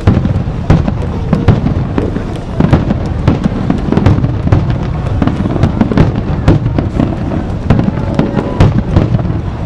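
Fireworks finale barrage: a rapid, unbroken run of overlapping shell bursts, several sharp bangs a second over a constant low rumble of booms.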